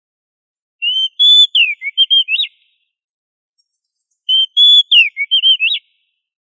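Oriental magpie-robin singing: two near-identical phrases about three and a half seconds apart. Each is a string of clear whistled notes with quick up-and-down slurs.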